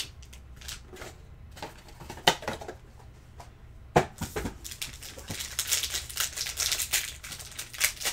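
A few sharp knocks as a trading-card box and its packs are handled on a table, then a shiny foil card pack crinkling and tearing as it is ripped open by hand from about halfway through.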